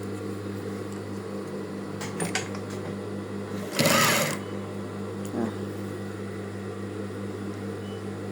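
Electric sewing machine running steadily, stitching a zipper into a lined gown's seam, with a fast even pulse of the needle. A brief louder burst of noise comes about halfway through.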